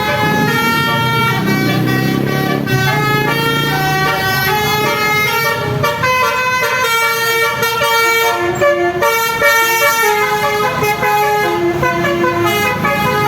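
A bus's Basuri musical air horn playing a tune, a run of loud horn notes that step from pitch to pitch several times a second, with the low rumble of the bus engine under the first few seconds.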